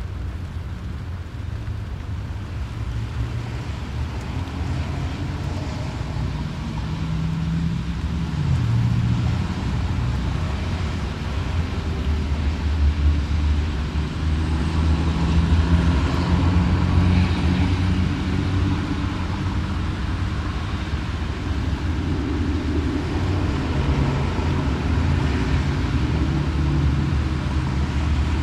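Road traffic passing in the rain, heard from inside a parked car: a steady low rumble of tyres and engines, growing louder as a vehicle passes about halfway through.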